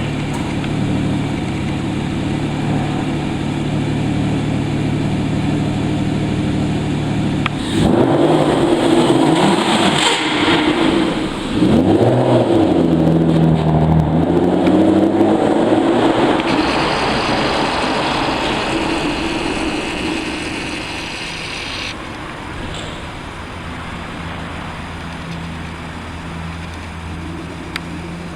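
Aston Martin DBS V12 engine idling steadily, then revved in several rising and falling blips for about eight seconds, after which it settles back to a lower idle.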